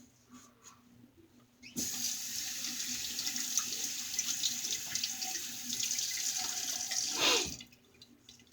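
Sink faucet turned on, water running steadily for about six seconds with a brief surge near the end, then shut off.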